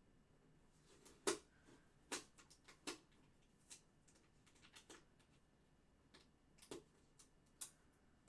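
A few faint, irregular clicks and taps from hands working on a plastic toy playset and its sticker sheet. The loudest comes about a second in, with others spaced roughly a second apart.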